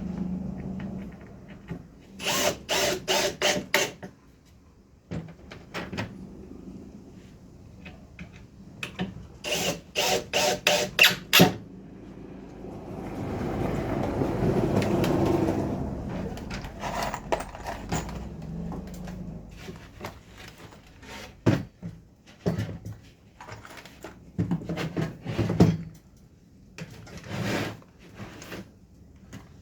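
Cordless drill-driver driving screws into plywood in two runs of quick trigger bursts, with a longer rough stretch midway and scattered knocks of wood being handled.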